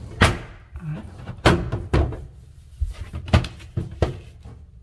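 Thin aluminum flashing sheet knocking and flexing against drywall as a hand presses and shifts it into place: about five sharp bangs with short gaps between them.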